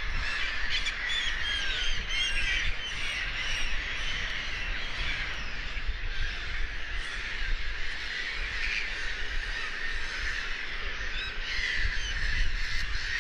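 A flock of gulls calling, with many short overlapping squawks and cries, over a low rumble.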